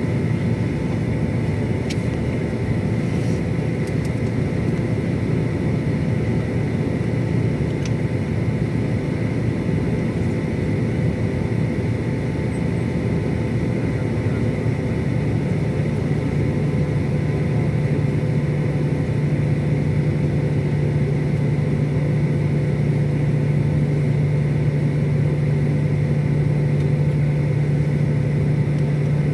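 Jet airliner's engines running steadily, a rumbling drone with a steady whine over it; a low hum in the drone grows stronger about halfway through.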